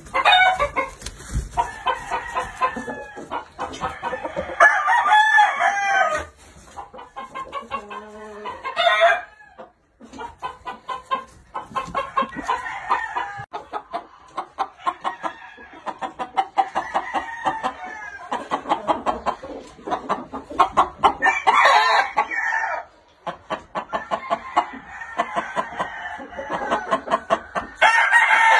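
Gamecock roosters crowing several times over a steady run of rapid clucking from the flock.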